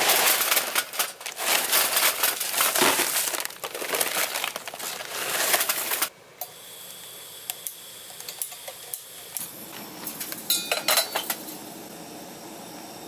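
Kingsford charcoal briquets poured from a paper bag into a metal chimney starter, with a dense clattering rattle and the bag crinkling. About six seconds in this gives way abruptly to a faint steady hiss and a few sharp clicks as a gas camp-stove burner is lit under the chimney.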